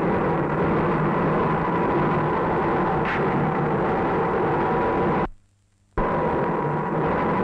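Loud, steady, dense rumbling roar that cuts out almost completely for about half a second just past five seconds in, then comes back abruptly at full level.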